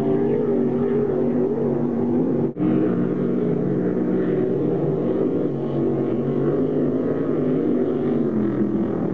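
Offshore racing powerboat engines running flat out as the boats pass, a steady drone whose pitch wavers. It drops out for an instant about two and a half seconds in, then carries on with the next boat, a Fountain race boat.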